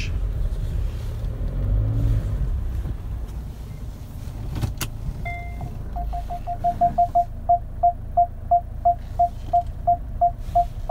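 Car cabin with a low engine and road rumble. About five seconds in there is a click, and then the rear parking sensor starts beeping: one high tone repeating quickly, settling to about three beeps a second and quickening again near the end. This is the warning of a car in reverse with something close behind it.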